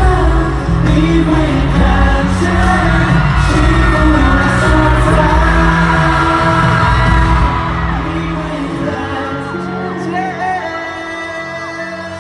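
Live band playing a Mandopop ballad at a concert, with singing over it and whoops from the crowd. About two thirds of the way through, the bass and drums drop out and the music carries on softer.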